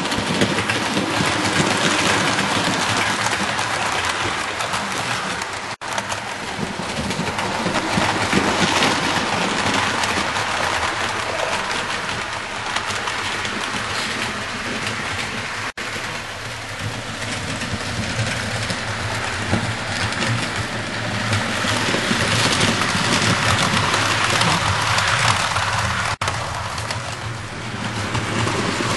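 OO gauge model trains running on the layout track: a steady whirr and rattle of motors and wheels on the rails, broken by three momentary gaps.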